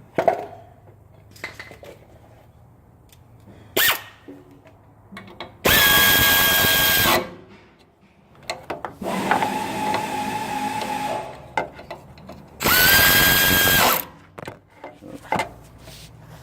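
A battery power tool's motor whines in three short runs: about a second and a half, then about two seconds at a lower pitch, then just over a second. Small clicks and knocks of tools on metal come in between the runs.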